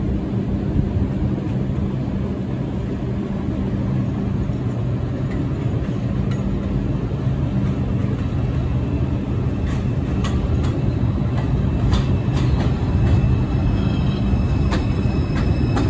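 New York City subway train running, a loud steady rumble with a low hum. From about ten seconds in, sharp clicks come in, then a thin high squeal near the end.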